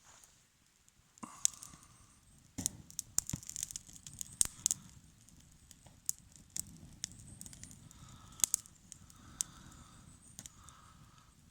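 Campfire crackling and snapping in irregular sharp pops, over a low steady rush of wind.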